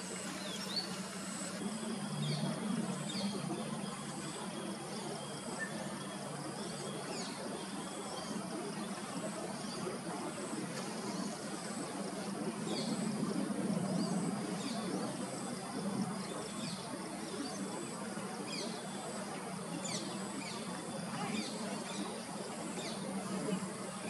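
Outdoor garden ambience: many brief, high chirps of small birds scattered throughout, over a steady thin high whine and a low steady hum.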